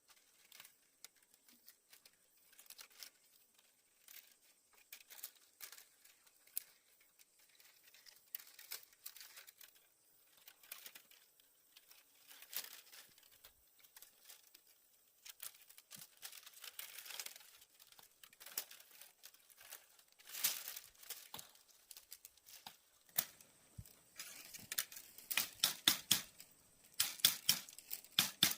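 Thin bamboo strips rustling, scraping and clicking against each other as they are woven by hand into a basket pot. The sound is irregular, getting busier and louder in the last few seconds.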